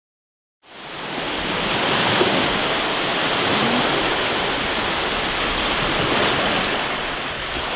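Ocean surf washing onto a sandy beach: a steady rush of breaking waves that fades in from silence within the first second.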